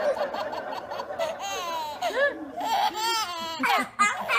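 Baby laughing: a string of high-pitched giggles that rise and fall in pitch.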